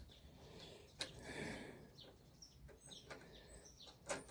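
Near silence with a few faint clicks and light knocks: a bolt and nut being handled and threaded.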